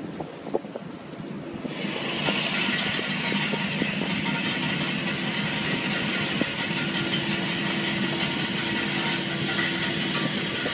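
A fishing boat's net-hauling machinery runs steadily, a mechanical hiss with a few held tones, as the net and its floats are hoisted. It comes in about two seconds in, after a quieter start with a few light clicks.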